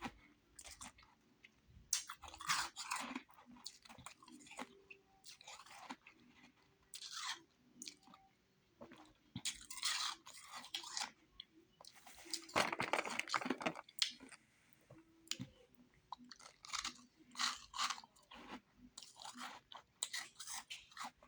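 Person chewing and crunching refrozen powdery ice in their mouth, in bursts of crunching with short pauses between bites, one longer stretch of crunching about two-thirds of the way through.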